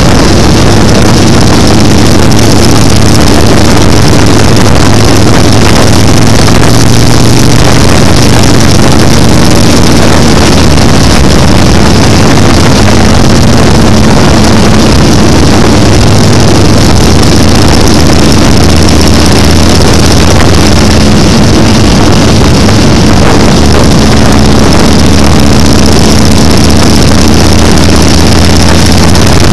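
Motorcycle engine running steadily at highway cruising speed, heard loud and close from the bike itself. Wind rushes over the microphone along with the engine note.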